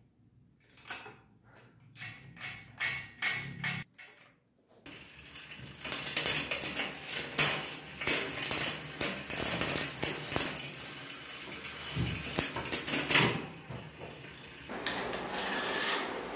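A few sharp metallic clicks as the bicycle's rear derailleur is handled. Then, about five seconds in, the chain runs through the SunRace M15 rear derailleur and cassette as the crank is turned by hand, a continuous rattling with many clicks that stops near the end.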